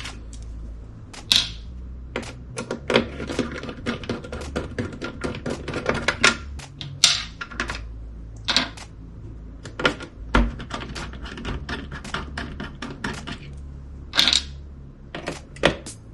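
Dense small clicks, taps and rattles of hands handling small metal and plastic parts and a screwdriver on a computer motherboard, with a few louder sharp clicks scattered through.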